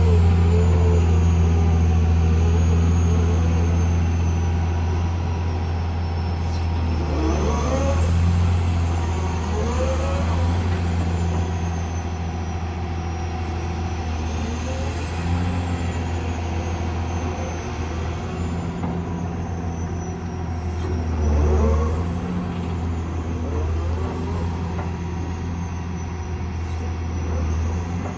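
CAT excavator's diesel engine running steadily, with its pitch and load swelling and easing several times as the machine works, most noticeably about 8, 10 and 21 seconds in.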